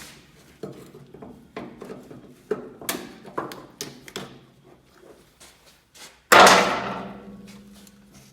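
Irregular metal knocks and clanks, each with a short ring. About six seconds in comes one much louder ringing clank that dies away slowly.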